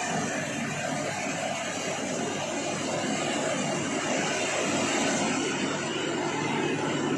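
Combine harvester running steadily.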